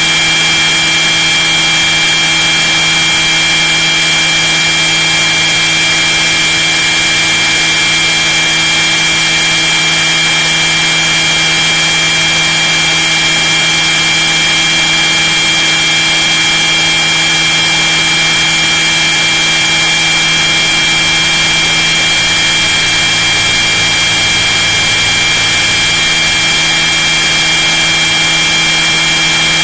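Radio-controlled scale model helicopter in flight, heard from inside its fuselage: the motor and rotor drive give a loud, steady whine with several high fixed tones over an even noise of rotor wash and air.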